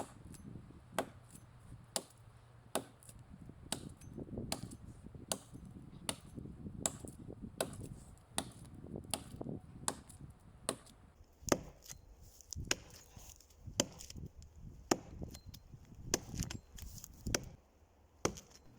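Axe chopping into the trunk of a dry, dead pine to widen a felling notch, with steady sharp strikes about once a second.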